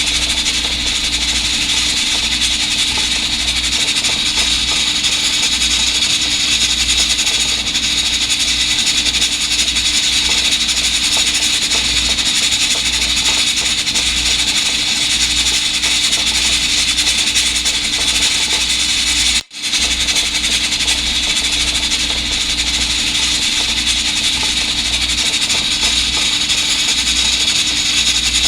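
Electric pressure rice cooker running with a steady hiss over a low hum as the rice cooks under pressure. The sound drops out for an instant about two-thirds of the way through.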